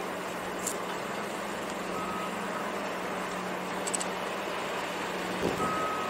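Heavy construction machinery running with a steady engine hum. A short high beep sounds about two seconds in and again near the end, typical of a machine's warning alarm, and a low thump comes shortly before the end.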